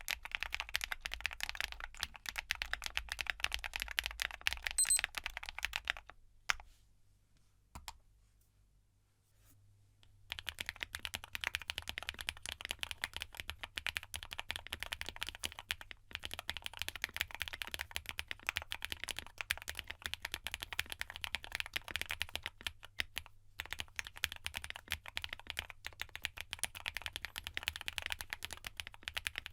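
Fast typing on a gasket-mount custom mechanical keyboard with linear switches: a QwertyKeys QK75 with GEON Black switches, with a somewhat clacky sound. After a pause of about four seconds, typing resumes on a POM-cased QwertyKeys QK65 with ZAKU linear switches, a muted, foam-damped sound.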